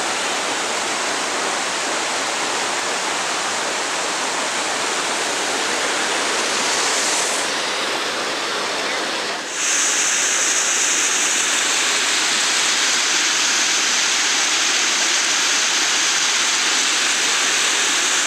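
Waterfall on a river rushing over granite ledges: a steady rush of whitewater. After a brief dip about halfway through, it sounds brighter and hissier.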